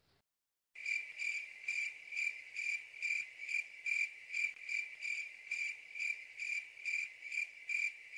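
Cricket chirping: one high, even chirp repeated about two and a half times a second. It starts abruptly about a second in.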